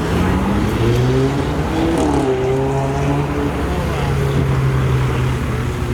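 A motor vehicle engine running with a steady low drone, its pitch shifting a little about two seconds in.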